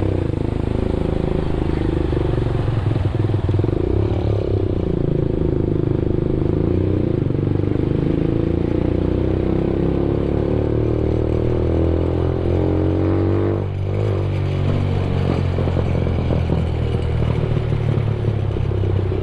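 Benelli TNT 15's 148cc air-cooled four-stroke engine running under load on the road with its silencer removed. Its pitch climbs steadily for several seconds, dips briefly about two-thirds of the way through, then holds steady again.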